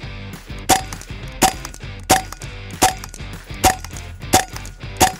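A .22 Hatsan Barrage semi-automatic PCP air rifle fired in rapid succession: seven sharp shots about 0.7 s apart, each a short crack with the gun's mechanical action noise.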